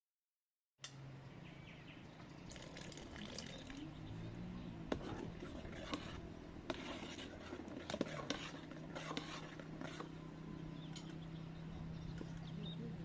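A liquid is poured and stirred in a metal cooking pot, with a spoon knocking and clinking against the pot several times, over a steady low hum. The first second is silent.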